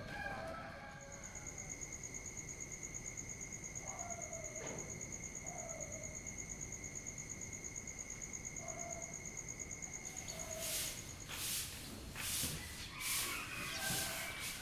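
Night insect chorus: a steady, fast-pulsing high trill over a lower steady tone, with a few faint distant dog barks. Near the end it gives way to a run of broom sweeping strokes.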